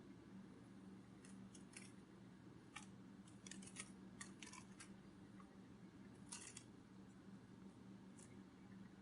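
Butterfly sound effect: faint, irregular short clicks and ticks, some in quick little clusters, over a steady low hum.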